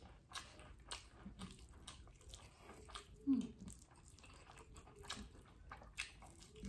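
Close-up mouth sounds of people eating rice, fried egg and eggplant sambal by hand: chewing with frequent small wet clicks and smacks. A short hummed 'mm' about three seconds in is the loudest moment.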